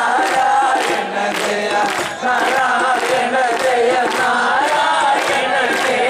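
Male voices singing an Ottamthullal song together in Malayalam over a steady drum beat.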